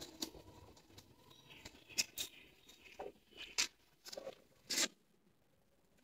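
Faint, scattered scuffs and light taps, about half a dozen, of people moving about on a gritty bare concrete floor.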